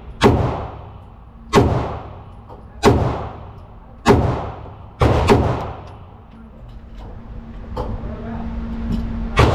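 Pistol fire at a range: single shots about every 1.3 seconds, then a quick pair about five seconds in, a couple of fainter shots afterwards, and one more loud shot near the end.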